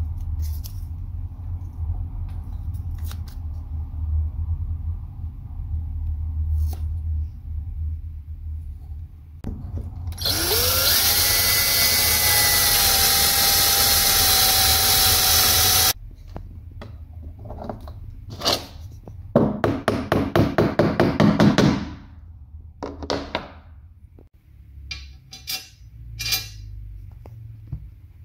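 A low rumble, then a cordless drill/driver drilling into a wooden door threshold: the motor spins up with a rising whine, runs steadily and loudly for about six seconds, and stops abruptly. Later comes a quick run of regular clicks, about five a second, and a few scattered clicks near the end, as the drill drives screws.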